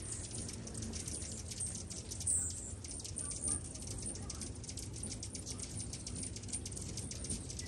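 Many hummingbirds chipping and twittering around a cluster of feeders: a dense patter of rapid, high ticks with a few brighter squeaky chirps, the loudest about two seconds in, over a low steady hum.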